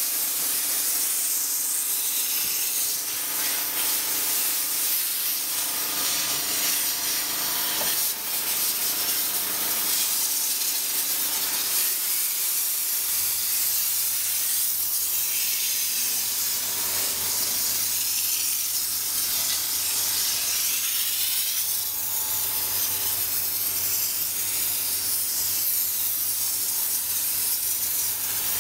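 A steam cleaner's nozzle jetting steam in a steady, loud hiss, with a cloth rubbing over the surface being cleaned. A low steady hum joins in about halfway through.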